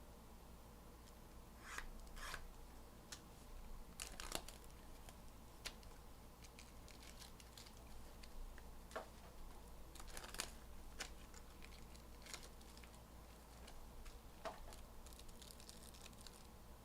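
Faint tearing and crinkling of a trading-card box's wrapping being opened, with a few short rustles and scattered light clicks and taps.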